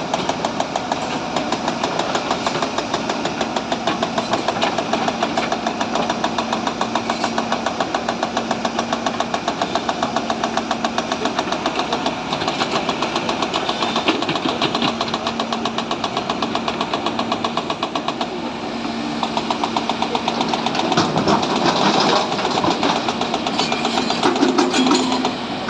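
Sany SY140 excavator's diesel engine running with a fast, even knocking beat and a steady hum. It grows louder and rougher in the last several seconds.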